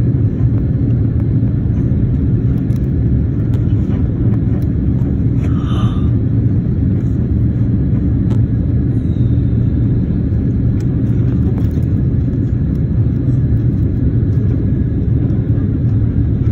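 Jet airliner cabin noise heard at a window seat: a steady, loud low rumble of engines and airflow during the descent through cloud.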